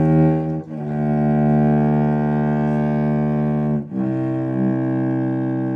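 Bowed string instrument playing long held low notes, moving to a new note about a second in and again near the middle.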